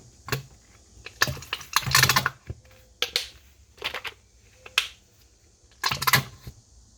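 A plastic conditioner bottle being shaken upside down: a series of irregular knocks and short clattering rattles, some single, some in quick clusters.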